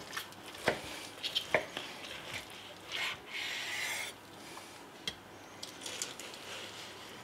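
Large kitchen knife sawing through a bacon-wrapped pork roll on a wooden cutting board: sharp clicks and crackles from the crisp bacon crust in the first two seconds, then a longer rasping stroke about three seconds in, followed by a few light ticks.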